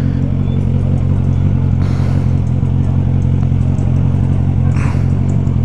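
Suzuki Bandit 1250 inline-four motorcycle engine with an aftermarket Carbox Racing exhaust, running steadily at low revs without revving, heard from the rider's seat. Two brief hissing bursts come through about two and five seconds in.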